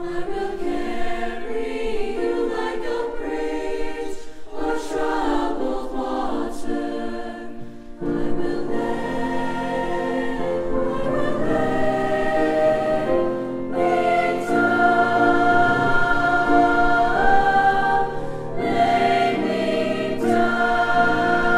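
Large mixed choir singing sustained chords; about eight seconds in, lower voices come in and the singing grows fuller and louder.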